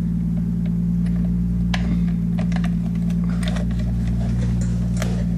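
A steady low electrical hum, with a few light clicks and taps as a Cat5 network cable is handled and plugged into a time clock's network port.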